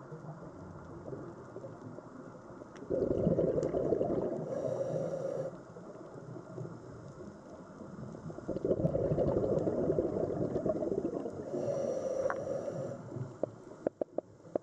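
Scuba diver's exhaled bubbles bubbling out of the regulator in two long bursts a few seconds apart, over a steady underwater hiss, with a few sharp clicks near the end.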